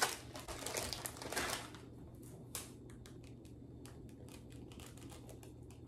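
A plastic bag of chocolate chips crinkling as it is handled and opened. After about two seconds this gives way to light, irregular ticks as the chips are shaken out and sprinkled by hand.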